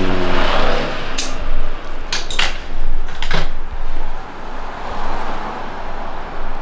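Short hiss of air from a dial-gauge tyre inflator held on a wheel's valve, followed by four or so sharp metallic clinks spread over a couple of seconds, over a steady workshop background noise.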